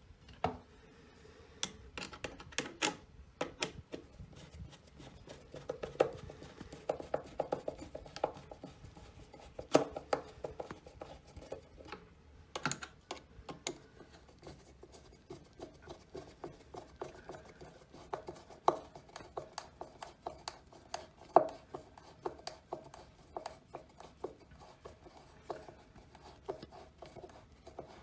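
Hands working with tools and parts: irregular clicks, light knocks and scraping, with a few sharper knocks about 10 and 21 seconds in.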